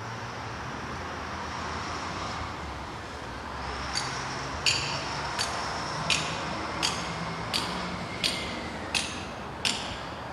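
Steady background noise, then from about four seconds in, evenly spaced hammer blows on metal, roughly three every two seconds, each with a short ringing.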